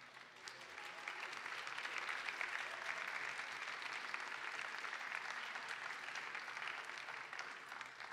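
Congregation and choir applauding. The clapping swells over the first second, holds steady, and tapers off near the end.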